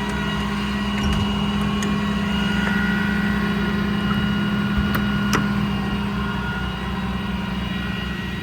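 The truck's Cummins 6.7 diesel idling steadily, with a few brief sharp clicks over it.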